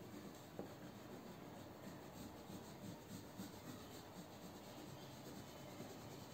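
Faint, scratchy back-and-forth rubbing of a yellow colour being shaded onto paper.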